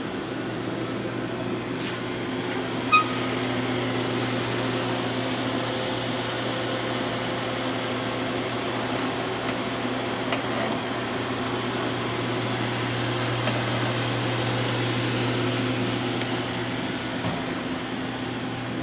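Steady electrical and mechanical hum of a powered-up CNC vertical machining center idling, with a strong low drone that swells slightly in the middle. A few faint clicks and a short beep come about three seconds in.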